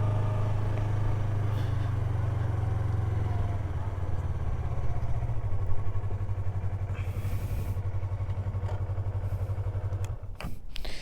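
Yamaha R3's parallel-twin engine running at a steady low pitch, dropping away about ten seconds in.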